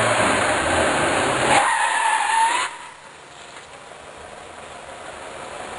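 A car going by with a short tyre squeal, loud and noisy, that cuts off abruptly a little under three seconds in. A quieter steady hiss follows.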